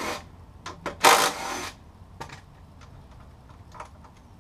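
Metal hand tools clicking and clattering against the motorcycle's front axle and fork, with two louder rasping bursts, one at the start and one about a second in, then a few lighter clicks.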